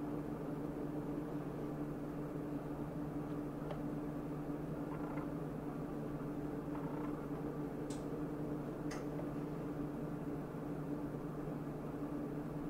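A steady low hum in the background, with a few faint clicks and taps as a rubber spatula scrapes thick cake batter out of a mixing bowl into a metal tube pan.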